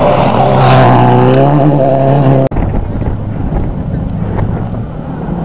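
Subaru Impreza rally car's engine at full speed passing close by on a gravel stage, its note falling in pitch as it goes past. It cuts off abruptly about halfway through, and a quieter, steadier engine sound of another rally car follows.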